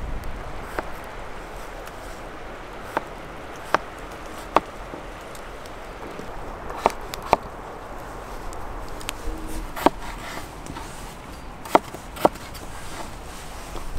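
Chef's knife chopping raw potatoes on a wooden cutting board: sharp single knocks of the blade on the board, about nine of them at uneven intervals, over a steady outdoor hiss.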